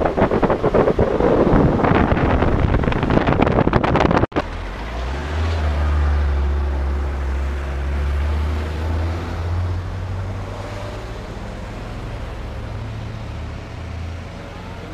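Wind buffeting the microphone, which is held out of a moving vehicle's window, cutting off suddenly about four seconds in. Then a car engine's low, steady hum, loudest in the middle and fading away.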